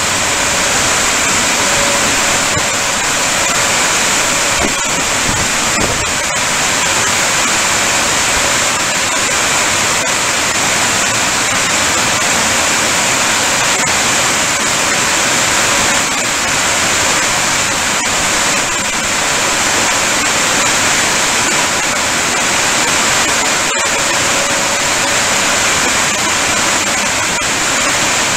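Automatic gantry car wash running over a car: a loud, steady rush of spraying water, with a faint machine hum under it.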